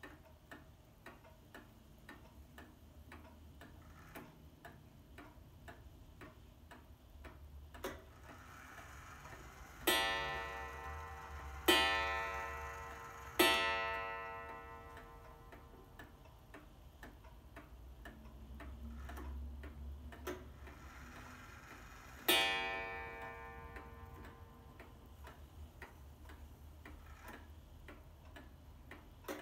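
Seikosha pendulum wall clock ticking steadily, then striking three o'clock on its coil gong: three ringing strokes about a second and a half apart, each fading slowly. About 22 seconds in it sounds a single stroke on the gong.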